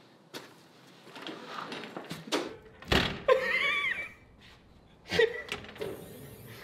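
Steel door of a tall Husky tool-storage locker shut with a thunk about three seconds in, followed by a second knock and, near the end, a lighter knock as the door is handled again.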